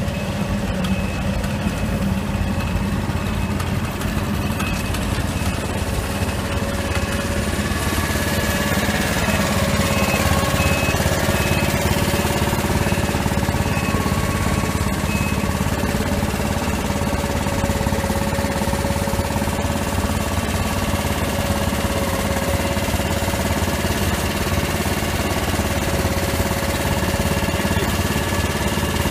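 Dragon asphalt mixer running steadily while it heats a drum of asphalt millings: its small engine turns the rotating drum and the burner fires. The result is a continuous drone with a faint constant whine.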